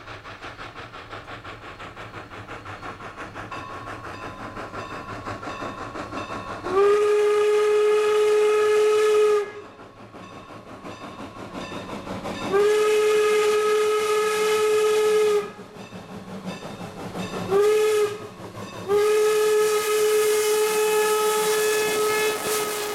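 Strasburg Rail Road No. 475, a 4-8-0 steam locomotive, approaching with its exhaust beats growing louder. It then blows its steam whistle four times, long, long, short, long, the road-crossing signal. The last long blast is still sounding as the engine passes close by.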